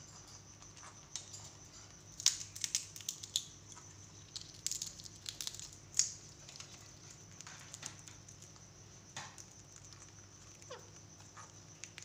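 Indian ringneck parakeet cracking and nibbling a peanut held in its foot: irregular sharp crunching clicks, busiest between about two and six seconds in, with the loudest cracks near two and six seconds.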